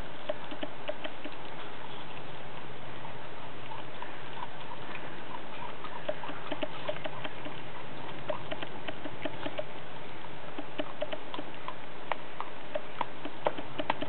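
Eight-week-old Groenendael puppy chewing and gnawing a raw turkey leg: small irregular clicks and smacks of teeth and jaws on the meat, coming in spells of several a second, over a steady hiss.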